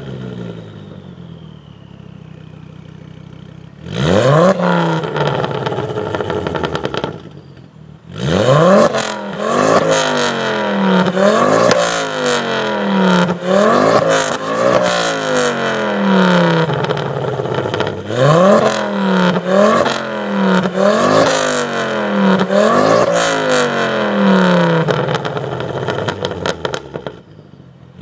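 Ford Focus ST225's turbocharged 2.5-litre inline-five with decat and de-resonated exhaust, idling and then revved: one longer rev about four seconds in, then from about eight seconds a string of quick blips that rise sharply and fall back, one every second or two.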